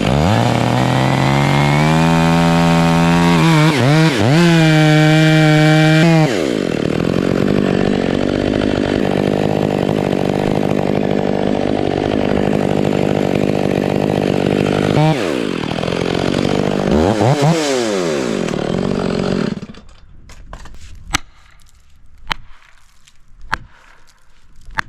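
Stihl MS 500i fuel-injected two-stroke chainsaw cutting into a big ponderosa pine trunk: it revs up, runs under load with its pitch dipping and recovering several times, then shuts off near the end. After it stops come sharp knocks about once a second.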